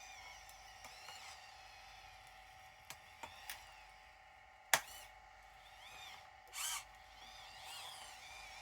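Small electric motors of RC model machines whining and changing speed, with a few light clicks, one sharp click about halfway through and a short noisy burst later on.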